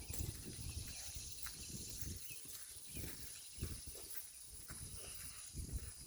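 A horse walking on soft ground, its hooves falling as irregular dull thumps with a few light clicks.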